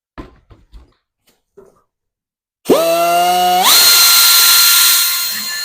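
A few light knocks, then an electric drill fitted with a hole saw is triggered about two-thirds of the way in. It spins up to a steady whine, steps up to a higher speed about a second later, and is released at the end, the pitch falling as it winds down.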